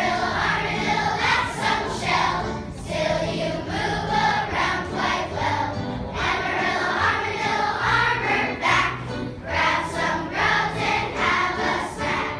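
A group of young children singing a song together as a choir, over an instrumental accompaniment with a steady bass line.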